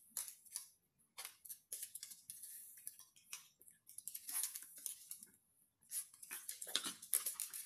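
A small dog's claws clicking and scratching on a hardwood floor as it walks and turns about. Faint, irregular ticks, with a short pause about two-thirds of the way through.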